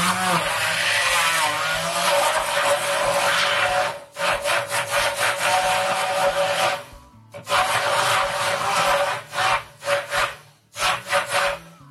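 Hand-held immersion blender motor running in a beaker of peeled tomatoes, puréeing them. It runs in three long bursts of a few seconds each, stopping briefly between them, then in several short pulses near the end.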